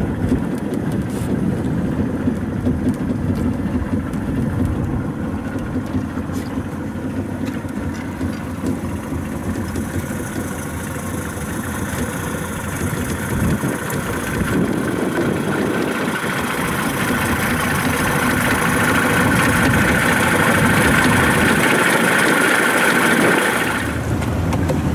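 A small open boat's motor running steadily under way, with a hiss of water and wind building over the second half and easing just before the end.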